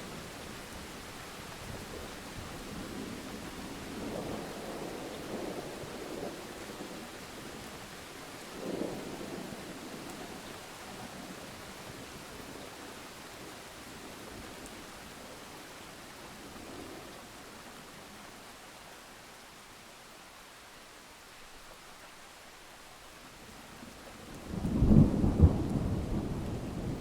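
Thunderstorm: steady rain with soft rumbles of thunder in the first half, then a loud clap and rumble of thunder near the end, the loudest sound here.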